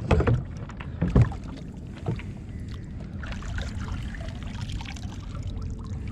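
Kayak on the water: water sloshing and lapping around the hull, with two sharp knocks in the first second and a half.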